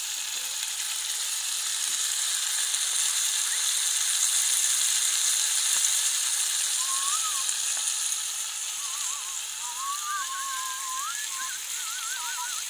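Cubed meat sizzling as it fries in a cast-iron cauldron over a wood fire: a steady hiss. From about halfway, thin wavering whistled notes come in over it.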